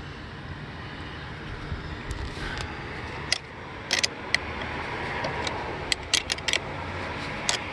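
Sharp metallic clicks and clinks of a wrench loosening a truck battery's terminal clamp, scattered at first, then a quick run of several about six seconds in and more near the end, over a low steady hum.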